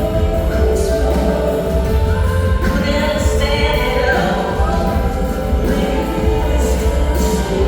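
Live band music: a woman singing long, bending notes over sustained keyboard chords and a steady low bass pulse.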